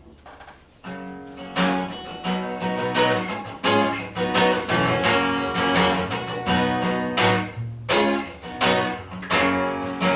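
Acoustic guitar strummed in a steady rhythm: the opening chords of a song, starting about a second in.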